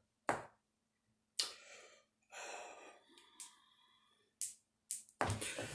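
Faint handling noises as makeup brushes and products are picked through: a few sharp clicks and short rustles, with a sigh-like breath.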